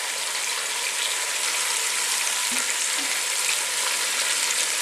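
Raw chicken pieces sizzling in hot oil in a pot, a steady hiss flecked with fine crackles.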